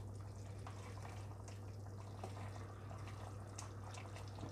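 Chicken curry simmering in a clay pot and being stirred with a wooden spatula: faint scattered pops and soft scraping over a steady low hum.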